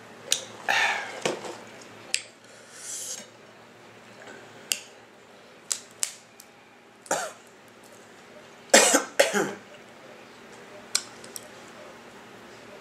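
A person eating seafood boil close to the microphone: short slurping and smacking mouth sounds with scattered sharp clicks.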